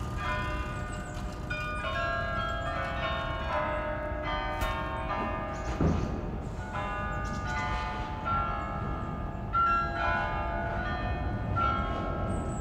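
Church carillon bells ringing out a melody of many small bells, their notes overlapping and ringing on.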